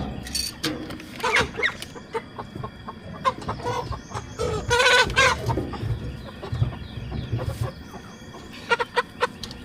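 Chickens clucking and squawking, with one loud, drawn-out squawk about five seconds in, among a few knocks and thumps.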